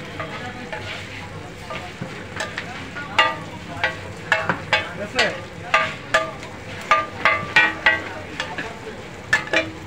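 Metal spatula striking and scraping a flat metal griddle, chopping and mixing chicken and onions frying in oil: irregular sharp clanks, a couple a second, over a steady sizzle.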